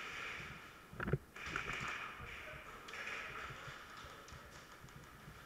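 Gear rustling and footsteps on a concrete floor as an airsoft player moves, with one sharp knock about a second in.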